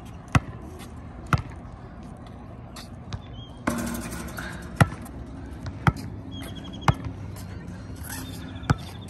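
A basketball bouncing on a concrete court: single sharp smacks about a second apart, with a pause of a few seconds in the middle and a brief rush of noise about four seconds in.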